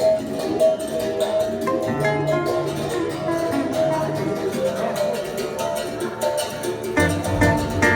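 Live acoustic Brazilian music with no singing: a violão (acoustic guitar) playing with bongo drums keeping a steady rhythm.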